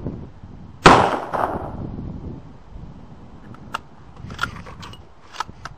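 A single shot from a Mosin-Nagant bolt-action rifle in 7.62×54mmR about a second in, its report dying away over about a second. A few faint sharp clicks follow a few seconds later.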